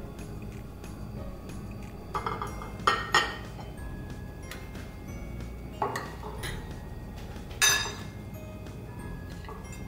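Metal fork and spoon clinking against a white ceramic bowl several times while tossing shredded cabbage and carrot, over light background music.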